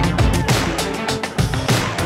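Backing music with a steady, heavy beat and deep bass.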